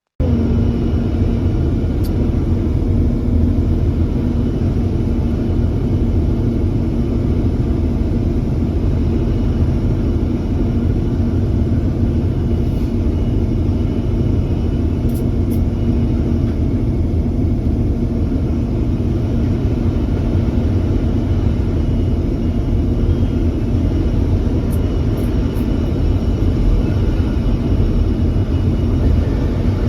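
Excavator's diesel engine running steadily: a constant low rumble with a steady hum over it.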